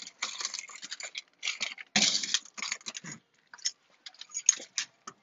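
A ring of keys jingling and clicking in a brass deadbolt as a door is unlocked: irregular small rattles and metal clicks.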